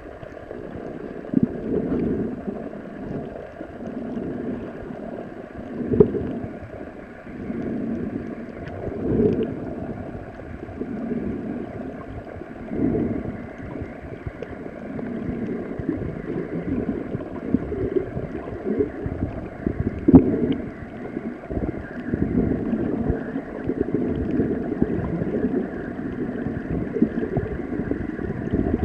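Muffled underwater sound through a submerged camera: low water swirling and gurgling that swells every few seconds, with a few sharp knocks and a faint steady hum behind it.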